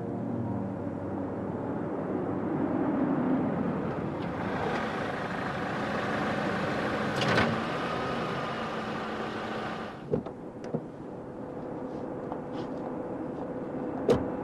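Street traffic noise with a motor vehicle going by, swelling from about four seconds in and cutting off suddenly about ten seconds in; a few sharp knocks follow, the loudest near the end.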